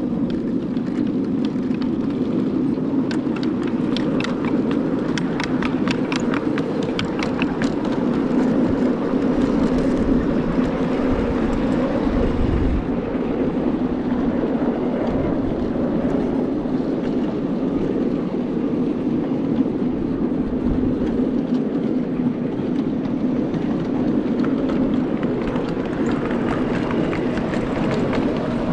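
Miniature railway locomotive running steadily with a continuous engine hum. A run of quick, evenly spaced clicks comes through for several seconds early in the stretch, and a low rumble swells briefly around the middle.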